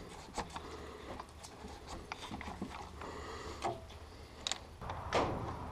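Scattered faint clicks and light taps of hands handling parts at a diesel engine's front timing cover, with a few sharper ticks and a short rustle in the second half.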